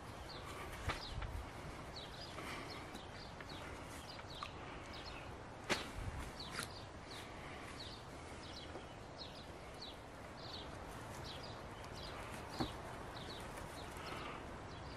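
Three sharp wooden knocks as green sticks and a wooden baton are handled on the ground. Behind them a bird repeats a short high call about every two-thirds of a second.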